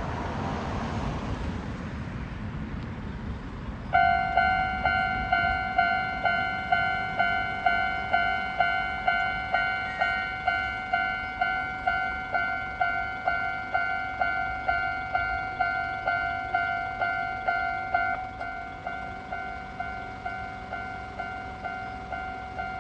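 Railway level crossing warning bell starting about four seconds in, clanging steadily about twice a second, a little quieter after about 18 seconds. Before it, a steady rushing noise.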